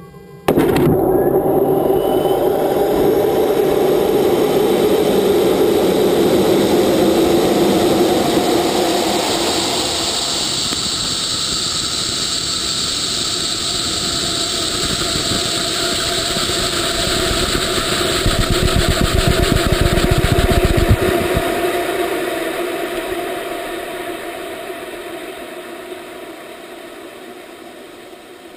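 Rocket motor igniting with a sudden loud onset, then a steady loud rush of motor exhaust and airflow picked up by the camera on the rocket's skin. A fast rattling comes in about 18 seconds in, and then the sound fades steadily as the rocket climbs into thin air near space.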